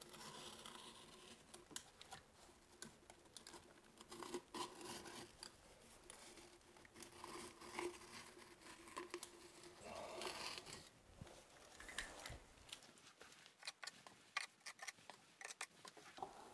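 Utility knife slicing through a thick waterproofing sheet membrane over a foam shower pan to cut out the drain opening: faint, irregular scratching and tearing with small clicks and crinkles of the sheet.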